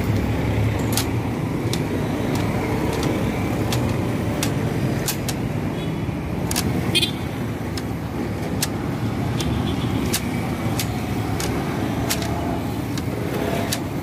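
Steady street traffic noise from passing cars and motorbikes, with irregular sharp clicks scattered throughout.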